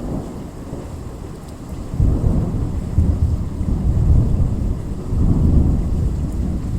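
Thunder rumbling during a heavy rainstorm. The rumble swells sharply about two seconds in and surges again near five seconds, over a steady hiss of rain.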